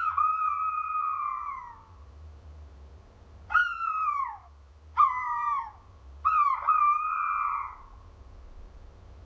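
Owl calling: four high, drawn-out calls with short pauses between them, each falling in pitch at the end. The last call is the longest. A faint low hum runs underneath.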